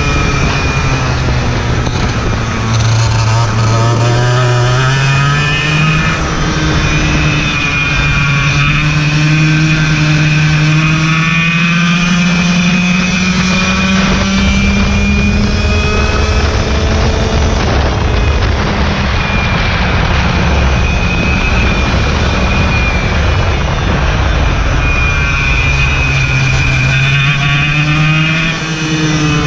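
Racing kart engine running hard, heard on board. Its pitch climbs slowly and steadily through a long stretch of acceleration, drops back, then rises again near the end.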